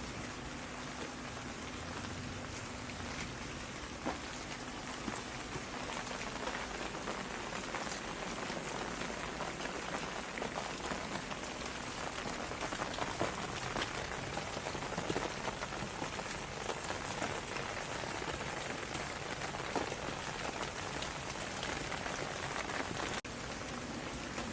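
Steady rain falling: an even hiss with many separate drop hits heard through it.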